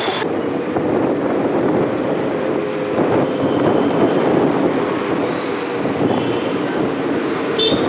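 Steady rush of wind and engine noise from a motorbike moving through city traffic, with a faint steady hum under it.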